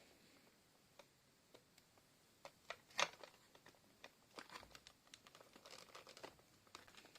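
Faint, scattered clicks and rustles of a Furby's plastic parts being handled and pushed together, with one sharper click about three seconds in.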